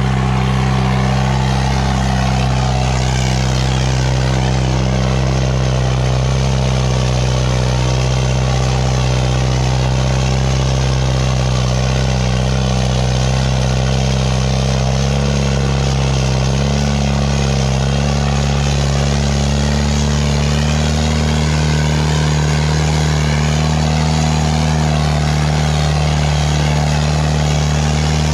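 Farmtrac 6055 tractor's diesel engine running steadily at high revs under heavy load, pulling a disc harrow through sand; its pitch rises a little about halfway through.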